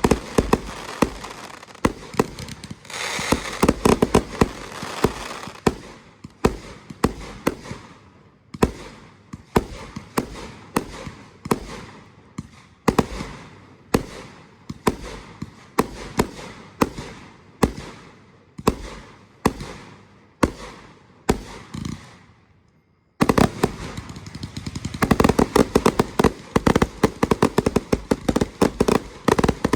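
Fireworks going off: a rapid barrage of bangs and crackle, then single shots a little more than one a second, each fainter than the last. After a brief silence, a dense, loud barrage starts suddenly.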